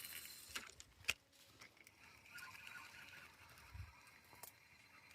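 Near silence outdoors, broken by a few faint clicks and a soft low thump, with a faint steady high hiss from about two seconds in.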